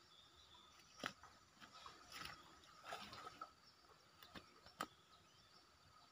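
Near silence: faint outdoor ambience with a few soft, short clicks scattered through it.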